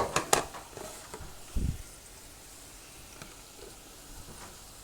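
Food frying softly in a pan: a faint, steady sizzle. A few sharp clicks of a utensil against the pan come right at the start, and a single low thump about a second and a half in.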